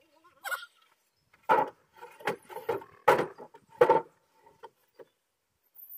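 Wooden knocks and clatters from deck boards being worked, about six irregular hits spread over a few seconds, the loudest near the middle.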